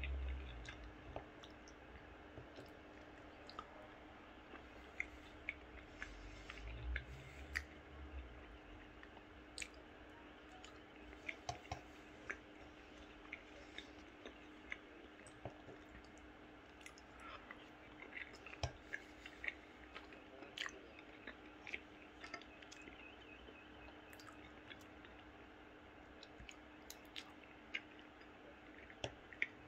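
A person chewing pasta close to the microphone with the mouth closed, with soft, scattered wet mouth clicks throughout over a faint steady hum.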